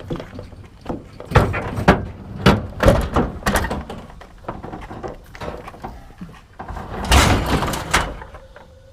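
Scrap metal appliances being handled and loaded: a series of clanks and bangs, then a longer, louder scraping crash about seven seconds in.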